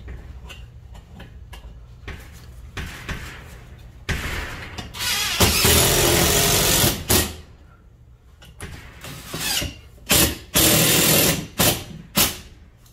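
Cordless drill/driver running in bursts as it drives screws through the security screen door's frame into pre-drilled pilot holes: one longer run of about a second and a half, then several short bursts near the end.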